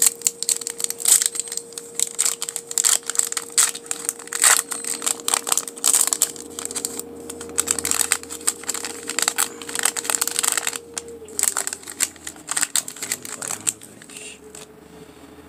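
Plastic wrapper of a 2017-18 Panini Revolution basketball card pack crinkling as cards are slid and flicked out of it by hand: a dense run of rapid crackles and clicks that thins out and gets quieter about eleven seconds in.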